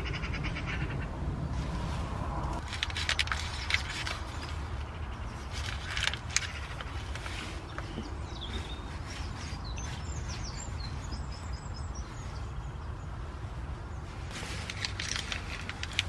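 Crows cawing outside in several clusters of harsh calls, about three seconds in, around six seconds and again near the end, over a steady low rumble.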